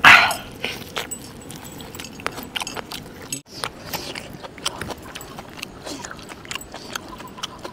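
Biting and tearing into a cooked goat leg piece, with a loud bite right at the start. After a cut about three and a half seconds in, a steel ladle clinks and scrapes in a large steel pot as curry gravy is ladled onto a steel plate.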